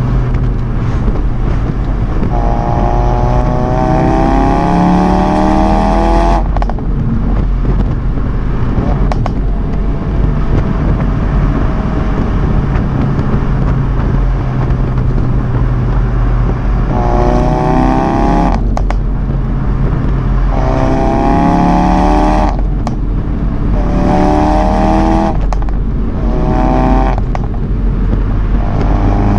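Ford Focus RS Mk3's turbocharged 2.3-litre four-cylinder engine idling, with repeated free revs: six throttle blips, each rising in pitch for one to four seconds and then cut off sharply back to idle.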